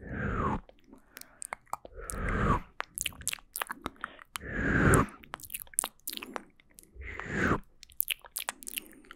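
Close-miked mouth sounds: a steady patter of wet clicks and smacks, with a longer wet swish that falls in pitch about every two and a half seconds, four times.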